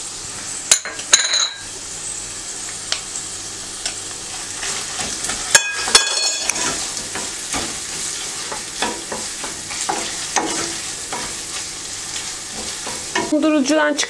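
Beef cubes and onions sizzling in a stainless steel pan with tomato and pepper paste, stirred with a wooden spoon. A few sharp clinks come about a second in and again around six seconds in.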